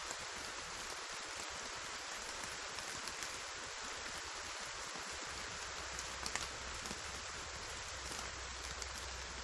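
Steady heavy rainfall, an even hiss with scattered sharp drop ticks. A low, steady rumble joins about halfway through.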